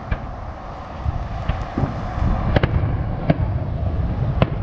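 Fireworks going off: about five sharp bangs scattered over four seconds, the last one loudest, over a steady low rumble of background noise.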